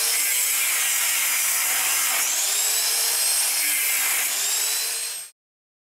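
Angle grinder with a cut-off disc cutting into a round steel bar: a loud steady grinding hiss with the motor's whine sagging in pitch and picking up again as the disc is pressed into the steel. It cuts off suddenly about five seconds in.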